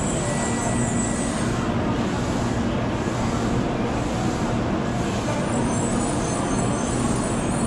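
Shinkansen high-speed train running: a steady, even rush of noise with a low hum underneath.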